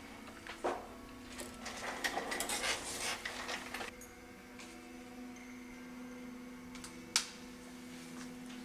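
Small parts being handled on a workbench over a steady electrical hum: a sharp click about half a second in, a stretch of light clattering and rustling from about one and a half to four seconds in, and another sharp click late on.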